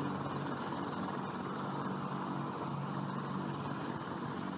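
AH-64 Apache attack helicopter in flight: steady rotor and turbine noise with an even low hum that holds level throughout.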